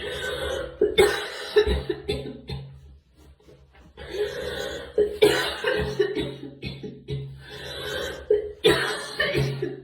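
A girl coughing in repeated fits of coughs, with a short pause about three seconds in before the coughing starts again.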